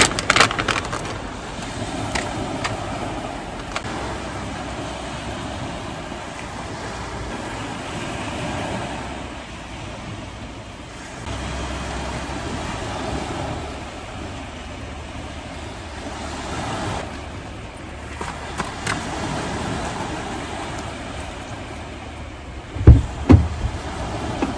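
Outdoor seafront ambience: a steady rush of wind and small waves that swells and fades every few seconds, with wind rumbling on the microphone at times. A couple of loud low thumps near the end.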